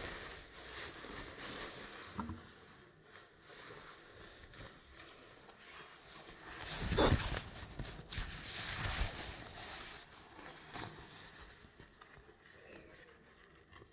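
Cloth rustling close to the microphone as a barber's cape is draped around the listener. The rustling comes in bursts, with the loudest swish about seven seconds in and more rustling around nine seconds.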